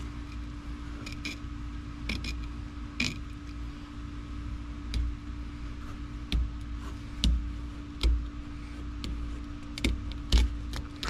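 Fillet knife cutting through a catfish behind the head, giving irregular crisp clicks and crunches as the blade works through bone. Under them runs a steady hum and a low rumble.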